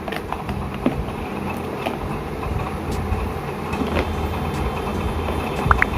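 A steady low mechanical hum in the background, with a few light clicks and taps.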